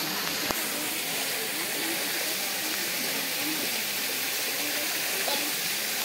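Steady hiss of rushing water from the waterfall and stream, with faint distant voices underneath and a single small click about half a second in.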